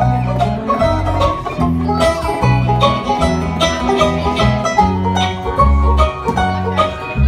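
Live bluegrass band playing: acoustic guitar, fiddle and bass, with quick plucked notes over a bass line that steps between low notes.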